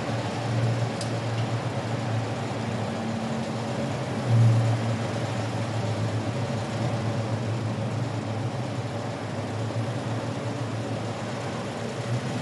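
Steady low rumble of a motorcade car driving slowly, with a constant low hum, briefly louder about four seconds in.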